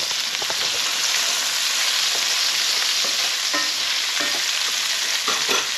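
Cherry tomatoes and chopped shallots sizzling steadily in hot ghee in a pan, with a wooden spoon stirring them and a few short scrapes against the pan in the second half.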